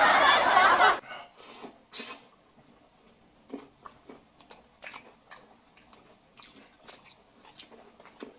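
A loud stretch of voices cuts off about a second in. After that: close-up eating sounds, with noodles slurped up through the lips and soft wet chewing smacks and clicks from two people eating.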